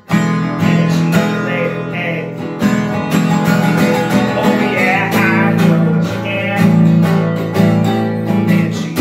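Steel-string acoustic guitar strummed steadily in a continuous chordal rhythm.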